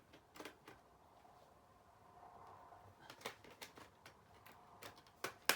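Scattered faint clicks and taps of laptop parts being handled and fitted, with the sharpest click near the end.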